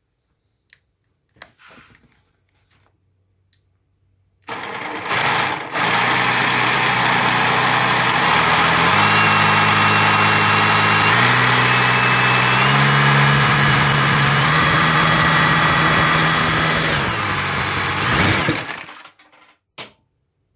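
Cordless drill spinning a LEGO Technic model of a Toyota 4A-GE engine through its gears, the drill's motor whine mixed with the clatter of the plastic pistons and timing chain. It starts about four seconds in, shifts pitch up and down in a few steps as the speed changes, and stops a little before the end, with a few faint clicks around it.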